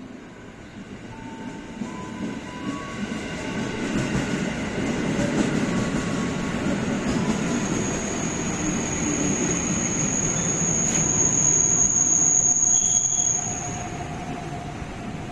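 Electric commuter train running alongside the platform: a rumble of wheels on rail grows louder over the first few seconds and holds. About halfway through, a high steady wheel squeal sets in. The squeal stops and the sound falls away a little before the end.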